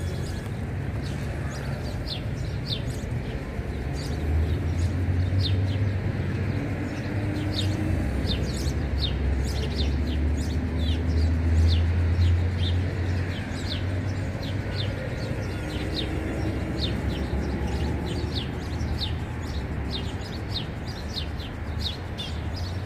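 Small birds chirping over and over, short high chirps through the whole stretch, over a low rumble that swells from about four seconds in to about fourteen seconds in.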